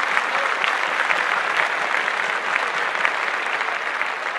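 Applause: a crowd clapping, dense and steady.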